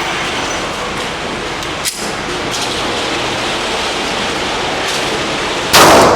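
A steady rushing noise, with a small click about two seconds in and a sudden loud bang or slam near the end that rings out.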